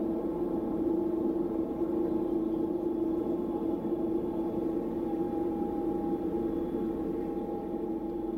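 Steady machine hum with a strong low held tone and a weaker higher one, unchanging throughout.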